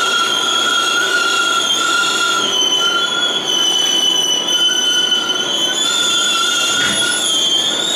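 New York City Subway R142A car's steel wheels squealing steadily on the rails over the car's running rumble, as the train rolls slowly along a station platform.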